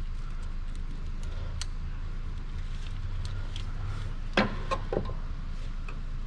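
Light clicks and knocks of hands and tools working on engine-bay parts, with a sharper clack about four and a half seconds in and two softer ones just after, over a steady low hum.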